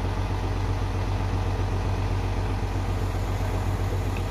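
Heavy vehicle's engine idling steadily, a low even rumble with no change in pitch.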